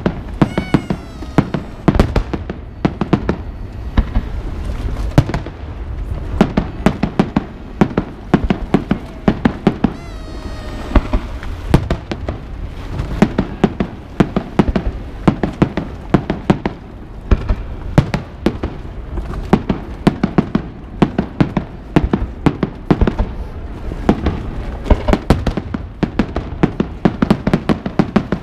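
Fireworks display: a rapid, continuous barrage of sharp bangs and crackles, several a second, with two whistling glides, one just after the start and another about ten seconds in.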